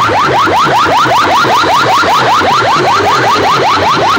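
Electronic siren-like effect blasted through a bank of aluminium horn loudspeakers at full volume: a rapid warble of short rising sweeps, about eight a second, over a low pulse.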